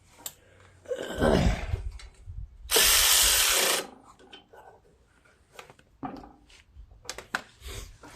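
Metal parts and tools being handled while a carburetor is fitted back onto a small engine: scattered clatter, clicks and knocks, with one loud hiss lasting about a second, about three seconds in.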